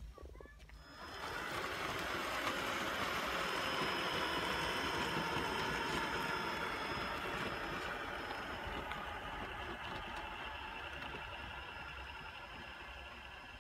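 Traxxas TRX-4 RC crawler driving along a gravel path: its electric drivetrain with a thin steady whine and its tyres over loose gravel. The sound comes in about a second in and slowly fades as the truck drives away.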